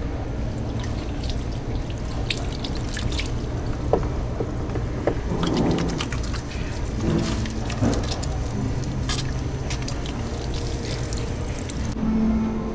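Tap water running into a sink, splashing irregularly as hands are washed under it, over a steady low background hum.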